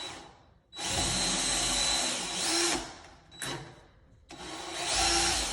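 Power drill running with a thin bit, pre-drilling pilot holes into a wooden cabinet door: two runs of about two seconds each with a short pause between.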